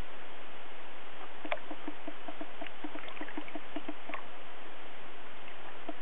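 Water lapping against a canoe's hull on a river: soft, quick knocks about three a second over a steady hiss of moving water, with a couple of brief clicks.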